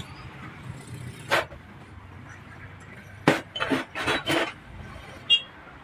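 Brass radiator filler-neck parts clinking and knocking as they are handled and set down on a workbench: one knock, then a quick run of about five, and a short metallic ring near the end.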